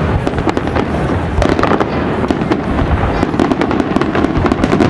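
Fireworks display in full barrage: many overlapping bangs and crackling reports a second over a continuous low rumble.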